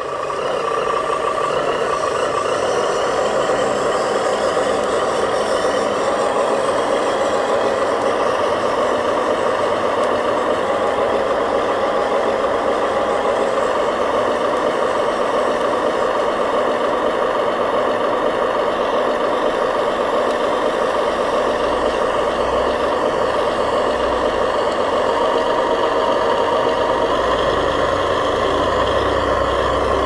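Remote-control dump truck with a steady diesel-truck engine sound. A deeper low rumble joins about two-thirds of the way through.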